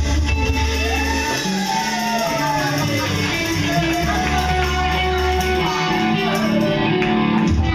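A live rock band playing, with electric guitars, bass guitar and drums. A lead melody slides and bends up and down in pitch over a steady bass line.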